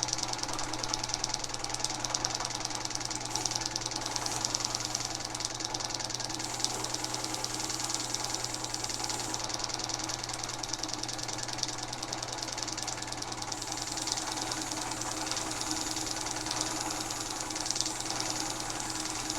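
Vintage drill press running steadily: a constant motor hum with a fast, even ticking or clatter from the running machine.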